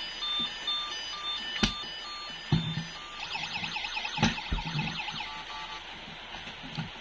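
Toy vehicle's electronic sound chip playing a beeping tune, then a fast warbling siren for about two seconds, with a few sharp knocks mixed in.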